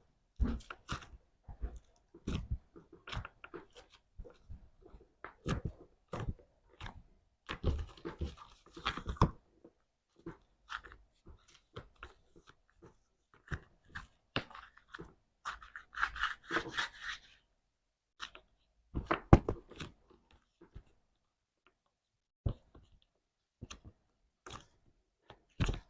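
Slime being squeezed and worked by hand: irregular sticky clicks, pops and crunchy crackles, with a quiet gap of about a second and a half near the end.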